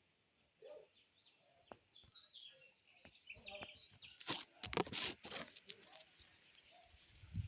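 Birds chirping, with a cluster of loud rustling knocks a little past the middle.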